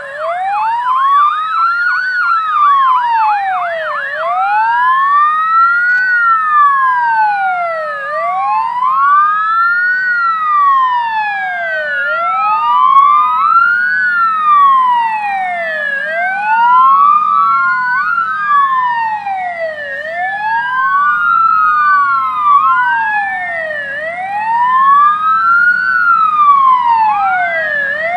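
Sirens of approaching CAS 32 Tatra 148 fire tankers, two or more overlapping, each wailing slowly up and down about every four seconds; in the first few seconds one sounds a fast warble. A low truck-engine rumble runs underneath, growing louder in the second half.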